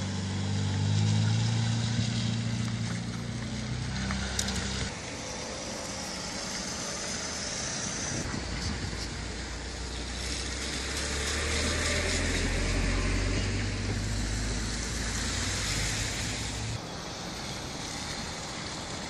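Road vehicles running, a low steady engine hum and rumble under road noise. The sound changes abruptly about five seconds in and again near the end.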